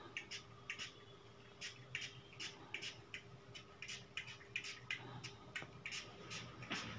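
Small pump-spray bottle of cyanoacrylate glue activator giving many short, faint puffs of mist, about three a second, to make the glue set fast.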